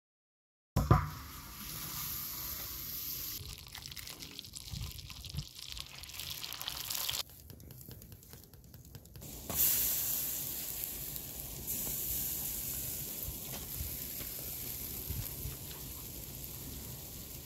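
Food sizzling as it cooks: a steady hiss that begins with a sharp knock after about a second of silence and changes level abruptly several times.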